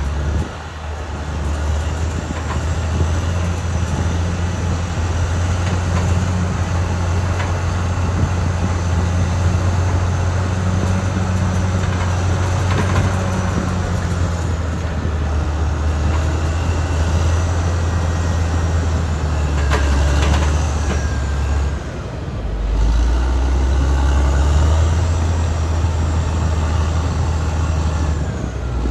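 Caterpillar D6R XL crawler bulldozer working, its diesel engine running under load while the steel tracks clank and squeal. About two-thirds of the way through, the engine note dips briefly, then picks up again.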